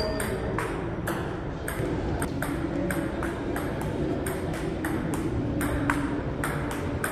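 Table tennis rally: a ping-pong ball clicking off paddles and the table in a steady back-and-forth, about three hits a second, in a large hard-floored hall.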